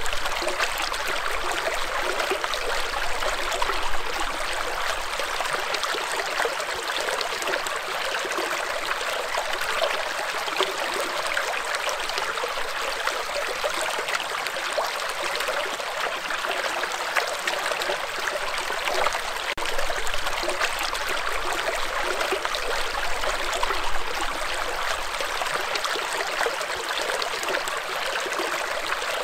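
Shallow rocky stream running over and between stones in a small riffle: a steady, unbroken rush of water.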